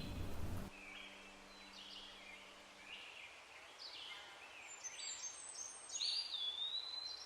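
Forest ambience of several small birds chirping and singing in short phrases, with one longer whistled note that slides down and holds, about six seconds in. A louder rush of noise stops under a second in.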